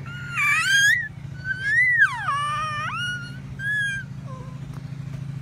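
Baby squealing: three high-pitched squeals, the middle and longest one rising and then sliding down, over a steady low hum.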